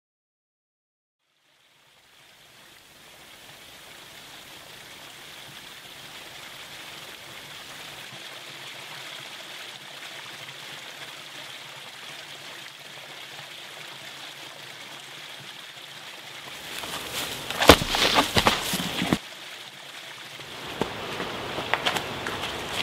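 Small woodland stream trickling over mossy rocks, fading in after about two seconds of silence and running steadily. From about sixteen seconds in, a runner's footsteps on dry grass and twigs come in as loud, irregular crunches that are louder than the water.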